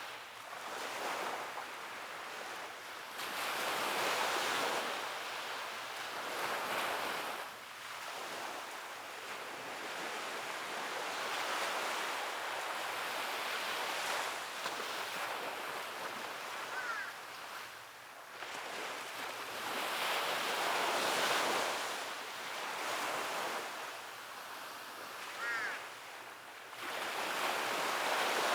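Sea waves breaking and washing up on a beach, swelling and easing every several seconds.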